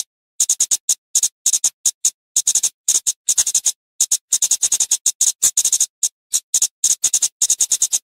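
Flowerpecker calling: quick runs of sharp, high-pitched ticking chips, several a second, broken by short pauses.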